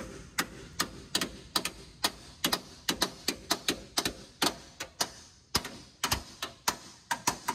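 Hammer striking a cold chisel against the steel body connector bar of a Ford Bronco, a run of sharp metallic blows about two to three a second, chiseling the bar free at its spot welds.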